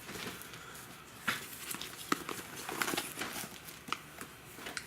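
Handling noise: scattered light knocks, clicks and rustling, a few sharper taps standing out.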